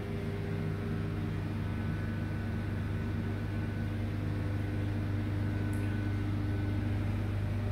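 Steady low machinery hum with a faint hiss, holding at one pitch throughout.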